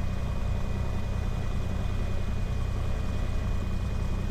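Cessna 182 Skylane's single piston engine and propeller running steadily at low taxi power, an even low drone.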